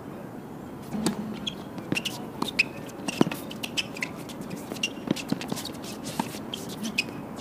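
Doubles tennis rally on a hard court: a string of sharp pops from rackets striking the ball and the ball bouncing, the strongest about three seconds in, mixed with brief squeaks of shoes on the court surface.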